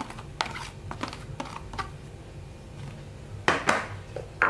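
Sliced shallots and garlic tipped off a plastic chopping board into a stainless steel mixing bowl: a run of light taps and scrapes, then a couple of louder clanks against the metal bowl about three and a half seconds in.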